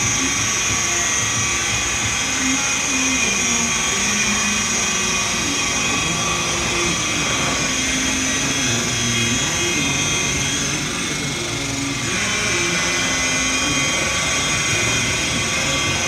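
Corded electric rotary polisher with a foam pad running against a plastic headlamp lens, a steady high whine as the oxidised lens is buffed. Its tone shifts slightly about twelve seconds in.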